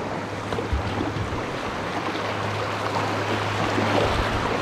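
Rushing water of a shallow river riffle around a kayak running through it, with water splashing along the hull; the rush grows louder near the end.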